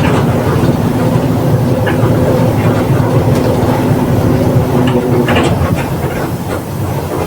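Mercedes-Benz OF 1721 BlueTec 5 city bus under way, heard from inside the cabin: a low drivetrain drone with a steady whine from the growling differential. The whine fades about five seconds in, and a few clicks and rattles come near the end.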